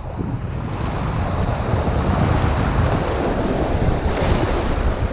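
Wind buffeting the microphone over surf washing across a shallow rocky shore, a steady low rumble with a hiss of breaking water.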